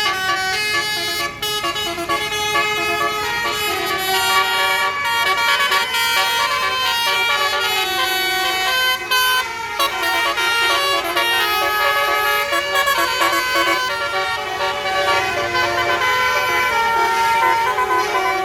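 Basuri musical air horns on a tour bus playing a 'telolet' tune, a run of steady horn notes stepping from pitch to pitch without a break.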